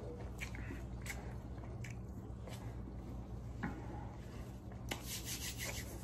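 A person chewing chicken wings with the mouth closed, soft wet mouth clicks spaced through it over a steady low hum; a sharper click near the end, followed by a run of quick faint ticks.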